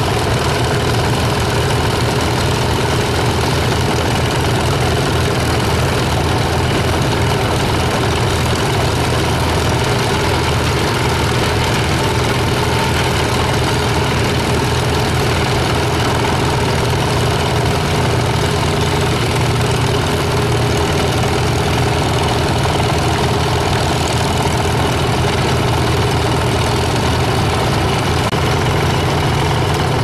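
An old steel-wheeled tractor engine runs steadily under load, driving a belt-powered saw that is cutting boards. The saw and belt hum continuously over the engine's low rumble, with no pause.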